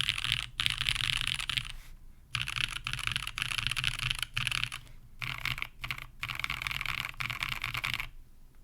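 Fast typing on a Sessantacinque custom mechanical keyboard: lubed Black Cherry Pies linear switches in a top-mounted carbon fibre plate with no dampening, under GMK keycaps. The keystrokes come in quick runs broken by short pauses and stop near the end.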